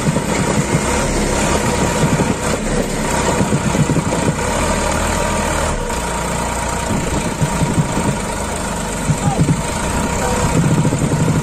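Sonalika DI 47 RX tractor's three-cylinder diesel engine running steadily while towing a loaded trolley, its rear wheels sunk in loose soil.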